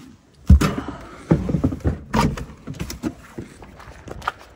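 Thumps and rustling of a person moving about in a small car and climbing out, with a car door. The loudest thump comes about half a second in, and more follow over the next two seconds.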